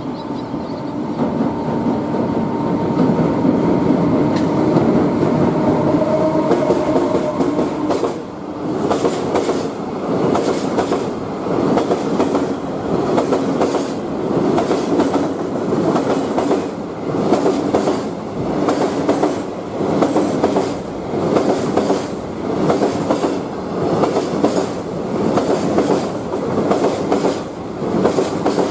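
Freight train passing close by on a bridge: the EF200 electric locomotive runs past with a steady rumble and a thin steady whine. About eight seconds in it gives way to the container wagons, whose wheels clack over the rail joints in a regular beat of roughly one pulse a second.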